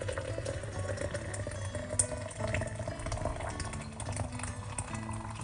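Hot water poured from a kettle in a steady stream into a glass French press over grated ginger and spices, its tone rising slightly in pitch as the jug fills. A light click about two seconds in.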